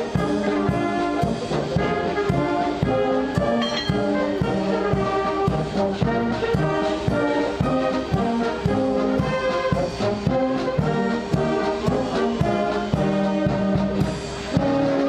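Music led by brass instruments, with a steady beat.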